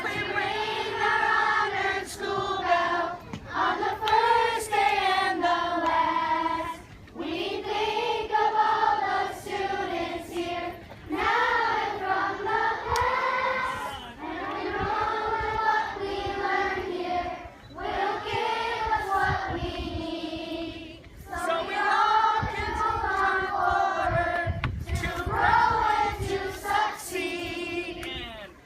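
A group of children singing together, line after line of about three to four seconds each, with short breaks between them.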